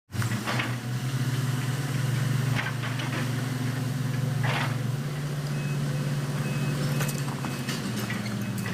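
Bulldozer's diesel engine running steadily, with a few sharp clanks and knocks over it.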